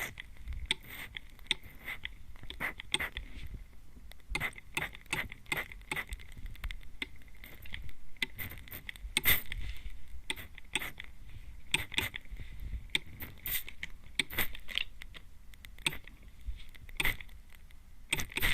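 Hand spray bottle misting close at the ear in many quick, short squirts at an uneven pace, each a brief spritz of hiss.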